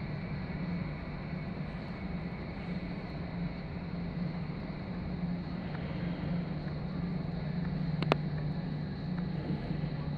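Boeing 737-800's CFM56 jet engines running at taxi power: a steady low drone over an even hiss. A single sharp click sounds about eight seconds in.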